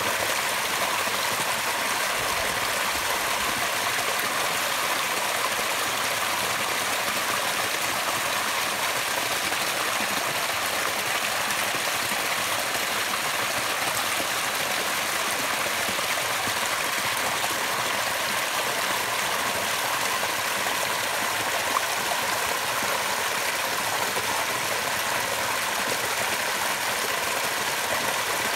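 Small waterfall pouring over rocks and splashing into a shallow pool: a steady, even rush of falling water.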